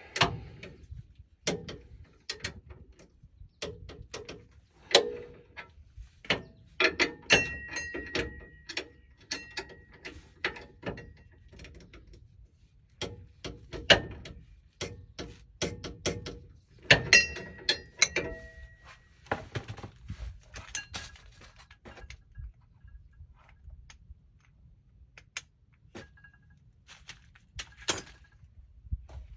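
Hand tools working bolts and nuts on the steel driveshaft loop: ratchet clicking in runs, with metal clinks and knocks, loudest in two busy spells.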